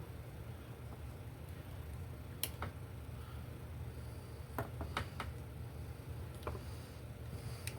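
Scattered small clicks and ticks from hands working the wire connectors off a light switch, over a steady low hum.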